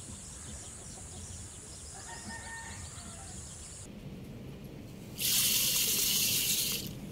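Raw rice poured from a small clay pot into water in a large clay pot, making a loud rushing splash for about a second and a half near the end. Before it there is a steady high drone with a few faint chicken calls.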